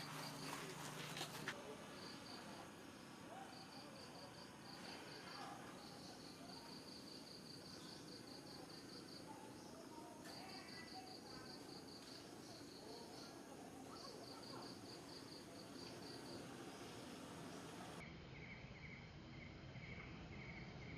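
Insects chirping faintly in runs of short high pulses, about five a second, each run lasting a second or two with short gaps between. Near the end a lower-pitched pulsed chirp takes over.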